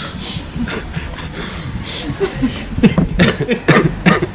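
People chuckling and laughing softly in short bursts.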